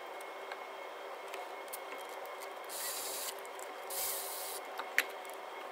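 Small metallic clicks and rubbing as hand tools and bolts are worked at a timing-belt tensioner, with two short hissing sounds about three and four seconds in and a sharp click near the end, over a steady workshop hum.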